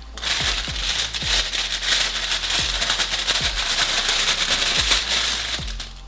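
Plastic oven roasting bag crinkling and crackling as hands pull it open after baking, over background music.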